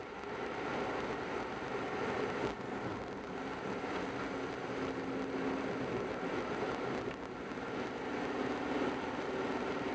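Car driving along at road speed: steady tyre and road noise with the engine's hum, which grows a little stronger for a second or two now and then. A single light knock about two and a half seconds in.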